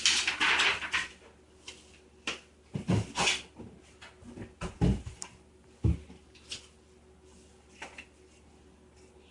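Handling noises from puppets and props being moved: a burst of rustling, then scattered light knocks and a few dull thumps.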